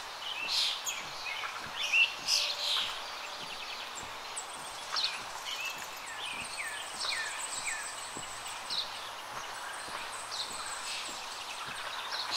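Wild birds chirping again and again, short calls that slide downward in pitch, a few louder ones near the start. Underneath are faint, regular footsteps on a steel grating bridge deck.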